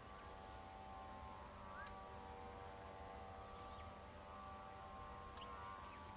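Faint, near-silent outdoor ambience: a steady low rumble and faint hum, with a few brief, faint chirps about two seconds in and again near the end.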